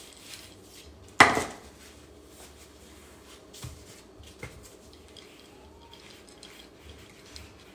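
Wooden rolling pin rolling out chilled shortbread dough on a floured pastry mat, a low rumble and scrape, with one sharp knock about a second in and two lighter knocks a few seconds later as the pin and its handles strike the board.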